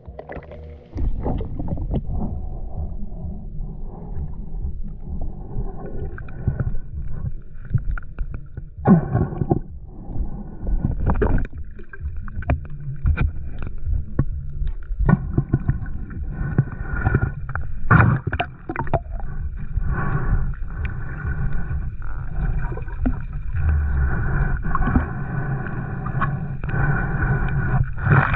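Water churning and gurgling against an underwater camera as a spearfisher swims below the surface, heard as a dense low rumble with scattered clicks and knocks. A faint steady whine joins partway through.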